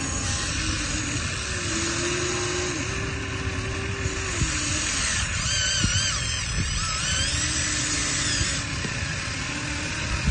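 Small electric motors of a radio-controlled excavator running, a whine that shifts in pitch as it works. From about five seconds in a higher, wavering whine joins for a few seconds.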